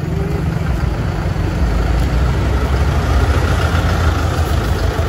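A large vehicle's engine running at idle, a steady low rumble that grows louder about a second and a half in.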